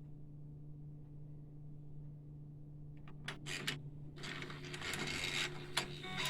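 UV flatbed printer running a head-cleaning cycle: a steady low hum, a few sharp clicks about three seconds in, then mechanical whirring and rubbing noise starting about four seconds in and growing.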